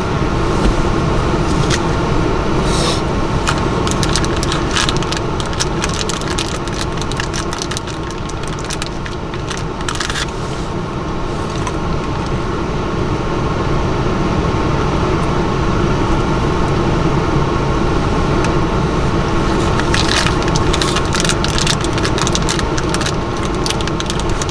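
Car driving along a road: steady road and engine noise, with scattered clicks and crackles throughout.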